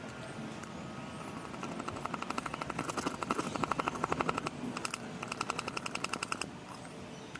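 Rapid rhythmic rattling, about six to seven strokes a second, in two bursts with a short break between them.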